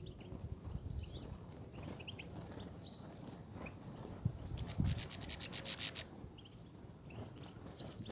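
European goldfinches calling in short high chirps, with a fast buzzing trill of about ten notes a second from roughly five to six seconds in, over low rustling noise.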